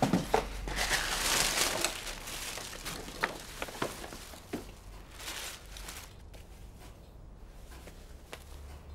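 Tissue paper rustling and crinkling as a present is pulled out of a paper gift bag and unwrapped, loudest about a second in and again near the middle, with a few small clicks of handling. It turns quieter over the last few seconds.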